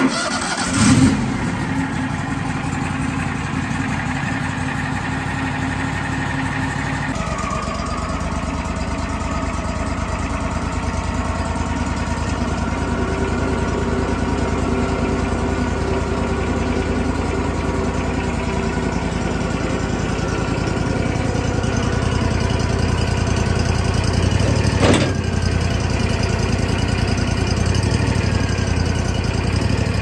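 Wood-Mizer LT40 sawmill's engine cranked and started cold, catching about a second in and then running steadily. Its pitch settles lower about seven seconds in, and there is a single sharp knock near the 25-second mark.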